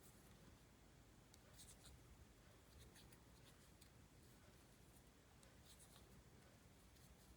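Near silence with faint, scattered soft ticks and rustles of a crochet hook working yarn.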